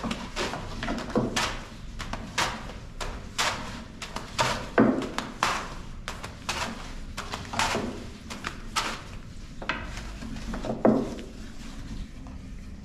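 A long thin wooden rolling pin knocking and rolling on a floured wooden board as a sheet of thin tiri flatbread dough is rolled out and flipped over the pin, about one knock or slap a second. The loudest slaps come about 5 s and 11 s in.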